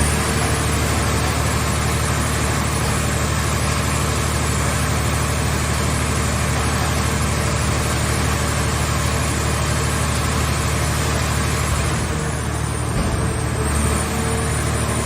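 A heavy engine running steadily, most likely the power unit of a car-scrap baling press, with a brief dip in level about twelve seconds in.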